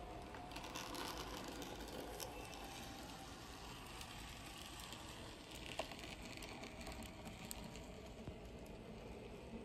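Small HOe narrow-gauge model locomotive running on its track: a faint steady whir with a few light clicks, loudest about halfway through as it passes close by.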